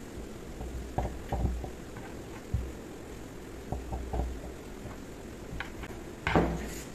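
Rolling pin rolling out dough on a floured tabletop: soft low rumbling thumps with the strokes and a few light clicks, then a sharper knock near the end.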